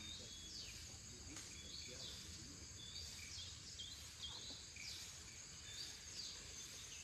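Faint outdoor ambience of a steady high-pitched insect drone, with birds calling in short, repeated downward-sliding notes.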